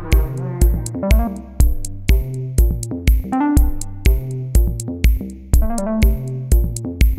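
Electronic background music: a steady drum-machine beat of about two kicks a second under a synthesizer melody.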